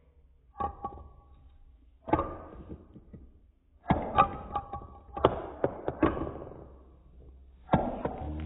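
Marbles knocking together and against a hard surface, a scattering of sharp clacks with a brief ringing after some of them, bunched closely from about four to six seconds in. The sound is slowed down with the slow-motion recording, so the clicks come out low and dull.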